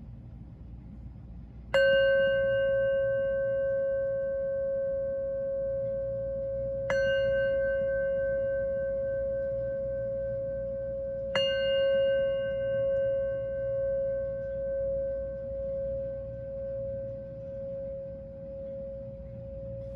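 Hammered brass singing bowl struck three times with a mallet, about five seconds apart, each strike leaving a long ringing tone with higher overtones. After the third strike the ring pulses slowly in loudness as it fades.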